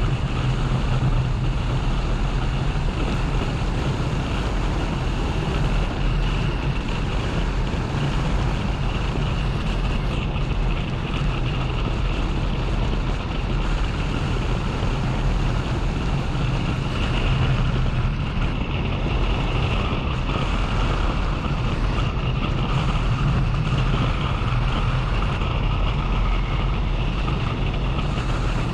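Motorcycle engine running steadily at cruising speed, with wind rushing over the camera's microphone.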